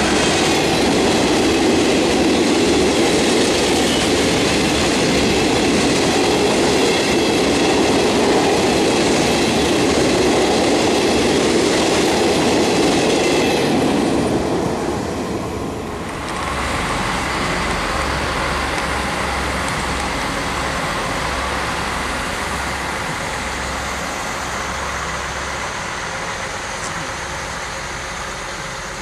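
A freight train of empty flat wagons rolling past close by at speed, the wagons clattering and rumbling over the rails. The noise cuts off about halfway through and gives way to the steadier, quieter running of a TER multiple unit moving slowly along a platform, with a low pulsing hum.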